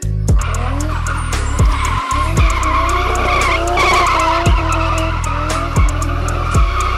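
Toyota Cressida with a 1JZ straight-six engine drifting: tyres squealing steadily as the engine revs climb again and again, over a hip-hop track with a heavy bass beat.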